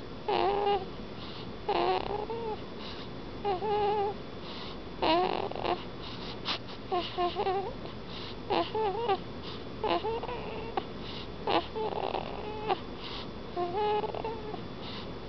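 Newborn baby snoring in his sleep: short, high-pitched, squeaky snores, roughly one each second.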